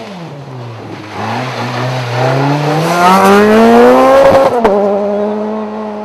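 Rally car engine under hard acceleration, its revs climbing steadily and growing louder for about four seconds. A sharp break in the note comes about four and a half seconds in, after which the engine drops to a steady, lower note.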